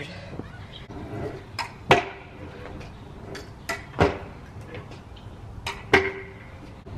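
Stunt scooter clacking on a concrete driveway: a handful of sharp knocks, the loudest about two seconds apart, each followed by a brief metallic ring.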